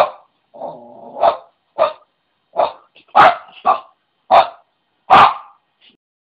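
Small terrier barking at a praying mantis: about eight short, sharp barks at uneven spacing.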